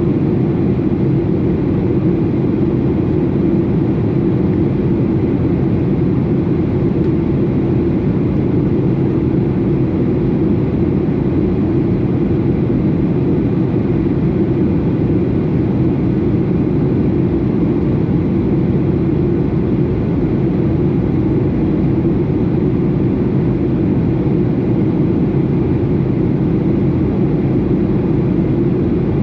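Steady drone of a Boeing 737 in flight, the jet engines and rushing air heard as an even, unbroken roar inside the cabin.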